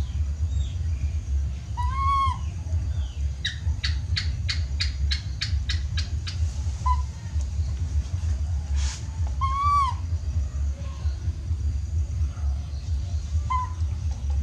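Baby macaque giving short, arched, whistle-like coo calls. Two are clear, about two seconds in and near ten seconds, with fainter ones between: contact calls for its mother. A quick run of about nine clicks comes between four and six seconds in, over a steady low rumble.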